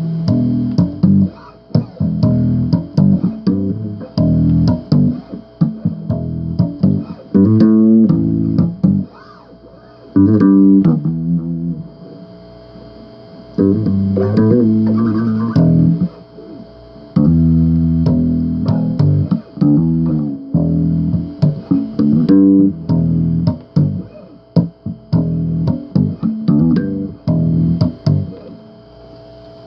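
Bass guitar riffing: plucked low notes in short phrases with brief pauses between them, over a faint steady tone.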